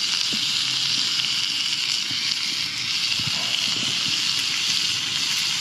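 Bacon-wrapped dove poppers sizzling in a hot pan over an open fire: a steady frying hiss with a few faint crackles.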